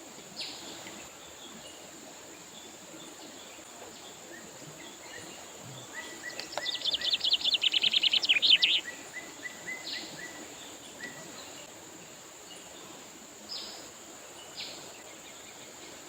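River water running steadily, with a steady high insect buzz above it. A songbird sings a fast trill of quick falling notes about six seconds in, lasting about three seconds, the loudest sound here, and gives single sharp call notes a few more times.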